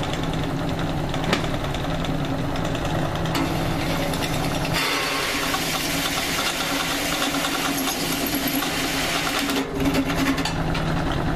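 Drill press running with its bit cutting a plug-weld hole through an oiled steel plate: a steady motor hum, joined about five seconds in by a harsher cutting noise as the bit bites into the steel.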